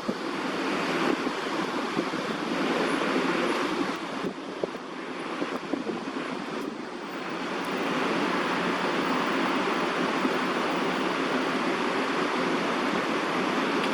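Steady rushing background noise with no clear pitch, with a slight dip in level a few seconds in and a few faint clicks.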